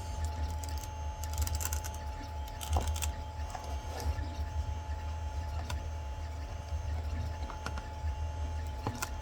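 Cured resin 3D-print supports being snapped off a large print by hand: scattered small cracks and clicks, a cluster of them about a second and a half in. Under them runs a steady low hum with a faint steady tone.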